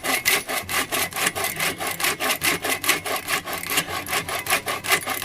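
Hand saw cutting through a wood branch with quick, even back-and-forth strokes. The saw's thin blade is flimsy and bends in the cut.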